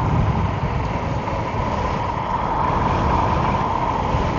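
Wind buffeting the microphone while riding an Emove Roadster electric scooter at speed, with a steady high whine underneath.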